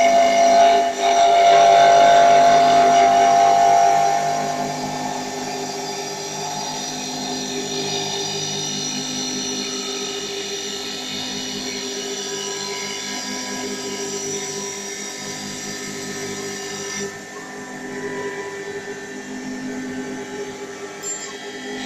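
CA-160 mini CNC wood lathe running, its spindle turning a wooden pen blank while the cutter works along it. It makes a steady machine whine of several tones, louder for the first four seconds and then settling a little lower, with a brief dip about seventeen seconds in.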